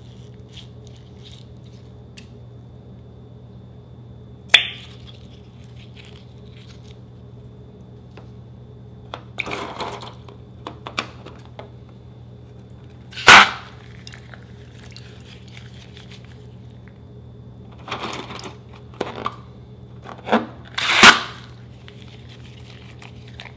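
Liquid-filled rubber balloons being cut open with scissors over a glass bowl and emptied, with sharp snips and their glue, water and borax activator splashing out into the bowl. A sharp click comes about four and a half seconds in, and the loudest snap and splash comes about 13 seconds in, with another loud one near the end.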